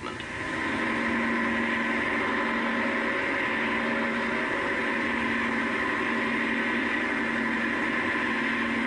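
Leyland tractor engine running steadily while ploughing, an even drone with no change in pitch.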